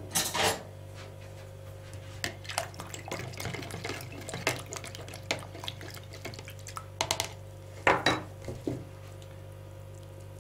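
Tomato liquid being handled and stirred in a plastic jug: scattered light clinks, taps and sloshing, with louder knocks at the start and about eight seconds in, over a steady low hum.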